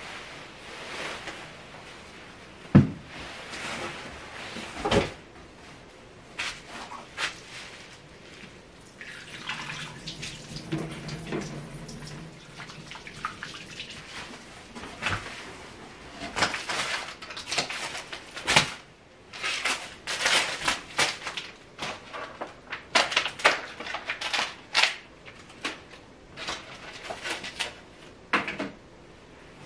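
Household handling sounds: a cloth tote bag and clothing rustling, two thuds near the start, then a long run of sharp clicks and crinkles of plastic packaging as a supermarket bento is handled.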